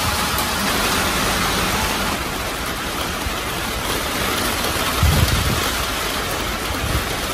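Heavy rain pouring down steadily as a dense, even hiss. A brief low bump comes about five seconds in.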